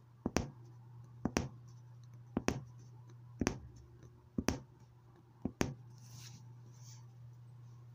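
Punch needle stabbing in and out of fabric in a running outline stitch: paired sharp pops about once a second, six times. A softer scratchy rustle follows near the end.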